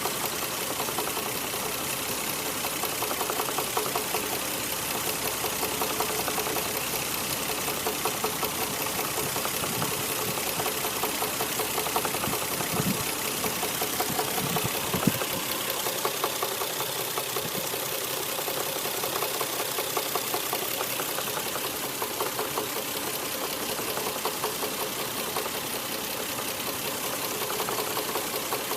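Toyota 1JZ-GTE 2.5-litre turbocharged straight-six running steadily at idle with a fairly loud, rapid knocking, a 'kon-kon, koto-koto', from around the engine. The knock comes on once the engine is warm, and its cause is unknown to the owner. A few deeper thumps come about halfway through.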